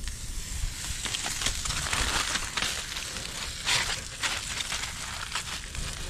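Cinnamon rolls sizzling in a cast iron skillet over a campfire: a dense, crackly hiss full of small pops that starts suddenly.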